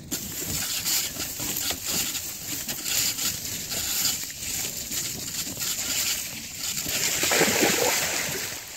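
Riding noise from a mountain bike filmed on a phone: wind rushing over the microphone with knocks and rattles from the bike on rough ground. The noise is loudest shortly before the end.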